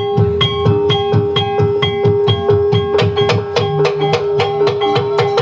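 Banyumasan ebeg accompaniment music in gamelan style: a held tone and repeated high ringing notes over quick, even drumbeats, about five a second.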